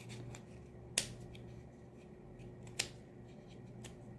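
Scissors snipping off the edges of a painted egg carton cup: two sharp snips about two seconds apart, with fainter blade ticks between.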